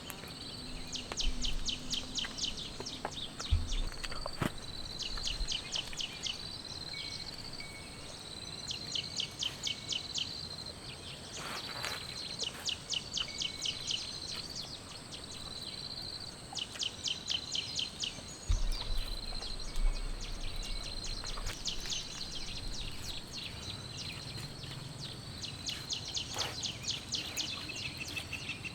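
Insects calling: bursts of fast pulsed chirps, each about a second long, repeating every few seconds over a steady high trill. A couple of low thumps come about three and a half and eighteen seconds in.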